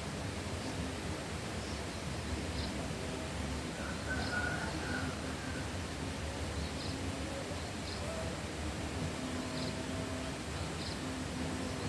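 Rural outdoor ambience: a steady rush of wind through leaves, with faint, short bird chirps scattered throughout and a brief higher call about four seconds in.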